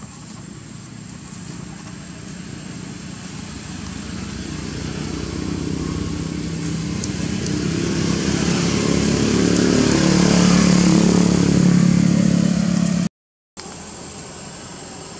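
A motor vehicle engine approaching, growing steadily louder for about eleven seconds, then cut off abruptly about thirteen seconds in.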